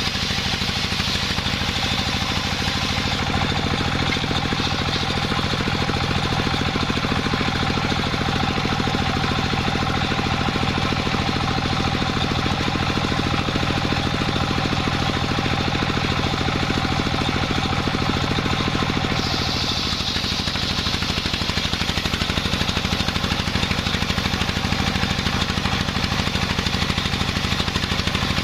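Engine-driven sawmill running steadily with a fast, even pulsing. From about three seconds in until about nineteen seconds the sound goes deeper and the high hiss drops away, then it brightens again.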